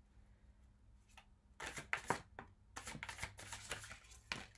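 A deck of tarot cards being shuffled hand over hand: a quick run of cards sliding and slapping against each other, starting about a second and a half in.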